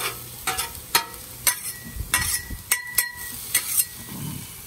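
Two metal griddle spatulas scraping and clacking on the steel cooktop of a Blackstone flat top griddle, about ten strokes, a few ringing briefly, over a steady sizzle of corn and pork chops frying.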